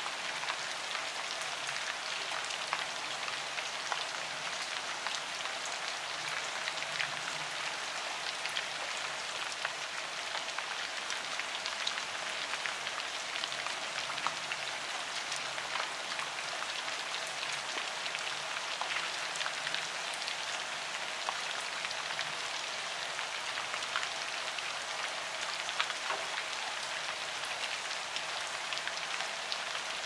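Steady rain falling on leaves: an even hiss with many small, scattered drop ticks.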